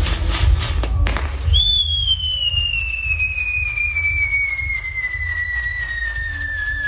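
A burning firework castle: a sputtering hiss of sparks, a sharp crack about a second in, then one long whistle from a firework that slowly falls in pitch.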